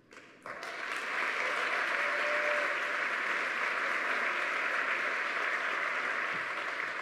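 Audience applauding steadily, starting about half a second in.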